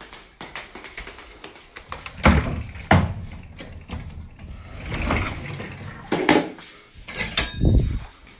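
A dog gnawing on a bone: irregular hard clicks and knocks, with a few louder thumps spread through.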